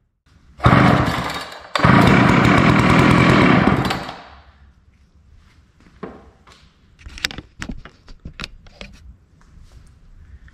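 Old Poulan two-stroke chainsaw pull-started on mixed gas poured straight into the cylinder. It fires about half a second in, runs for about three seconds and dies out, because it has no fuel feeding from the tank. A few scattered knocks and clicks of the saw being handled follow.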